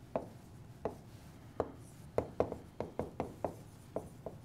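Stylus tapping and scratching on a pen tablet as words are handwritten: about a dozen short, sharp, irregular clicks that come closer together after about two seconds.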